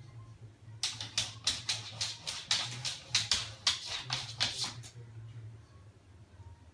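Labrador's claws clicking on a laminate floor as it trots, a quick irregular run of taps from about a second in to nearly five seconds.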